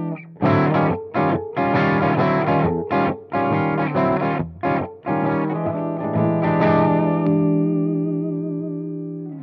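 Electric guitar with Lundgren Tele 90 P90-style pickups, played through a light overdrive: a run of short, choppy chords with brief stops between them, then a chord left ringing with a wavering pitch that slowly fades over the last few seconds.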